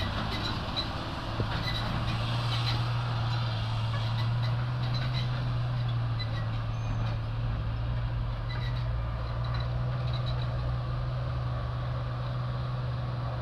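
Dump truck's engine running with a steady low drone as the truck drives slowly away.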